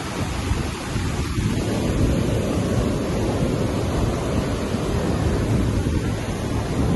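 Rough sea surf breaking and washing up a dark sand beach, a steady rush of water with wind buffeting the microphone.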